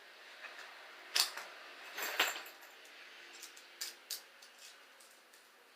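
Metal handcuffs being handled: scattered sharp clicks and clinks, the loudest about a second in and a cluster around two seconds in, with lighter clicks near four seconds.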